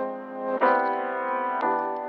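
Background music of held keyboard chords, the chord changing about half a second in and again just past one and a half seconds.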